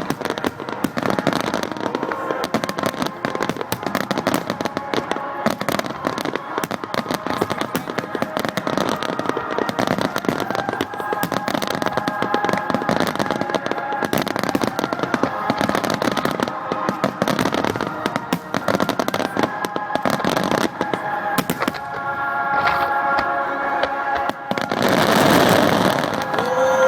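Fireworks going off in a dense, continuous barrage of rapid bangs and crackling, swelling louder near the end.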